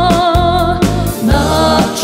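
A woman singing a Serbian folk song live, her melody wavering with vibrato over a band's steady bass line and drum beat.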